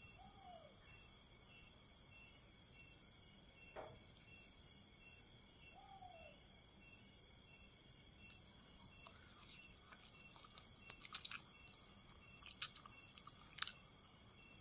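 Near silence with faint, steady insect chirring, crickets by the sound of it, and a faint falling call twice. A few soft clicks of fork and chewing come near the end.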